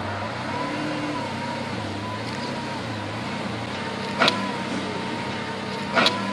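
Lamborghini Aventador's V12 idling steadily amid passing traffic. Two short sharp clicks, one about two-thirds of the way through and another near the end, stand out as the loudest sounds.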